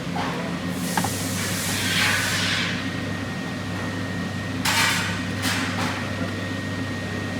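A hinged door and its latch being worked: a sharp click about a second in, a sweeping rush as the door swings, and a few short clacks around the middle, over a steady mechanical hum.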